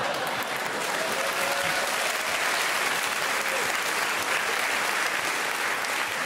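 Studio audience applauding steadily, with a few voices mixed in.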